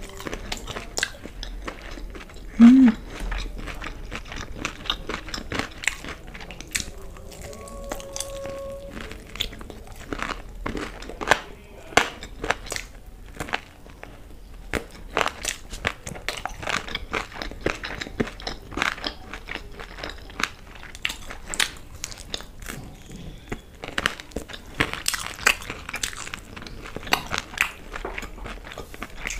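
Close-miked eating: crunching bites into crispy fried chicken lollipops and chewing, a steady run of short crunches and clicks. A brief low hummed 'mm' about three seconds in is the loudest sound.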